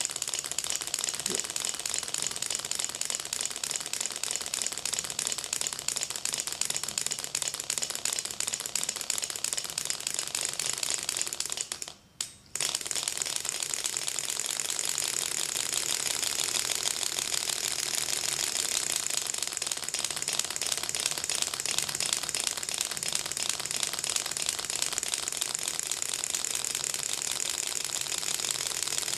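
Six-cylinder rotary Ringbom Stirling engine running, with a rapid, steady clicking as each piston works against its displacer and throws it back and forth. The sound cuts out for about half a second around twelve seconds in.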